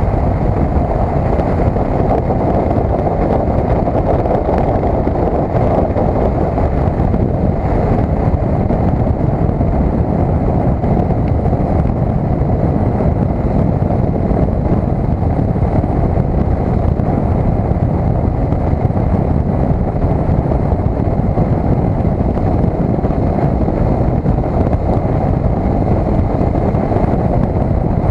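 Steady wind rush buffeting the built-in microphone of a cheap helmet-mounted action camera at road speed, with the 2012 KTM 990 SMT motorcycle's running mixed in underneath.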